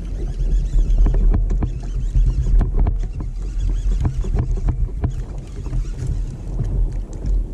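Steady wind rumble on the microphone, with irregular knocks and clicks from gear and handling on a plastic kayak.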